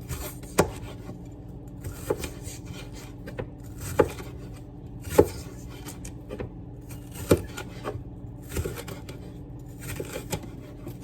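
Kitchen knife chopping bell peppers on a cutting board: single sharp knocks at an uneven pace, about one every one to two seconds, from a dull knife. A steady low hum runs underneath.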